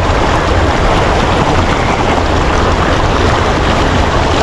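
Fast-flowing river water rushing steadily and loudly, with a deep rumble underneath.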